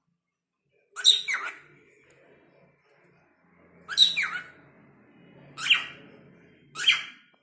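Pet cockatiel giving short, rough calls with quick pitch slides: a pair about a second in, another pair about four seconds in, then single calls near the end.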